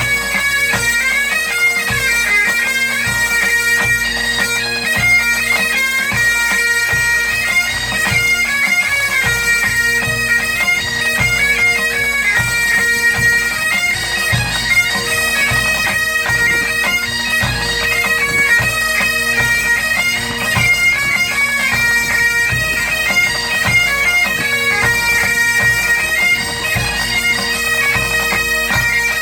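A Breton bagad pipe band playing: bagpipes hold two steady drones under a lively chanter melody, with drums beating out a steady rhythm beneath.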